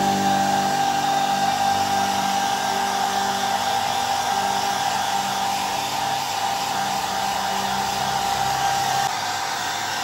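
Handheld hair dryer running steadily, a whine over the rush of air, blowing on a dog's damp fur.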